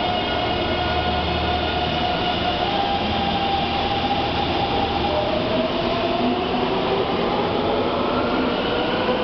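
Taipei Metro C321 train pulling out of an underground station. It starts with a steady electric hum, then from about halfway through its motor whine rises in pitch as it gathers speed, over a constant rumble.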